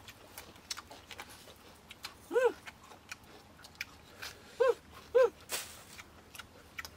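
Crisp crunching and chewing of raw greens and eggs, with short high whimpers from a puppy, once about two and a half seconds in and twice close together about a second before the end.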